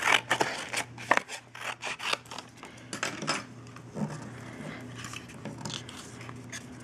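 Scissors snipping and rustling cardstock as the paper is cut and handled: a quick run of sharp snips and crackles over the first few seconds, then softer rubbing and shuffling of paper.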